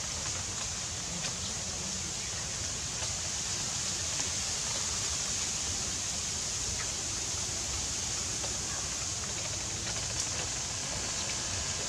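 Steady outdoor hiss with a low rumble underneath and a few faint crackles scattered through it.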